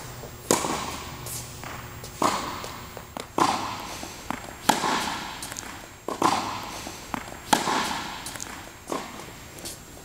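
Tennis ball struck by a racket on backhand strokes. There are about seven sharp pops, roughly one every one and a half seconds, and each rings on in the echo of an indoor court hall.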